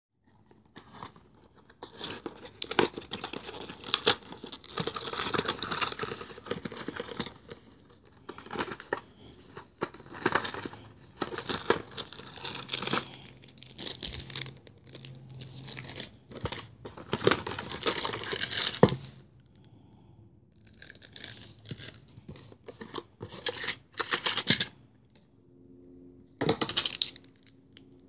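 Cardboard model box being opened and its plastic packaging rustling, crinkling and tearing in irregular bursts, with a few sharp clicks and snaps in the quieter second half.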